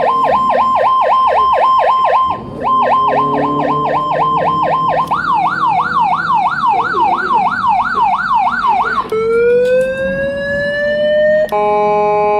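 Chinese electronic siren sound box cycling through its tones: a fast yelp of sharp repeated up-sweeps, about four a second, broken once briefly, then a smoother up-and-down warble about three times a second. About nine seconds in it switches to one long rising wail, and near the end to a steady blaring horn tone.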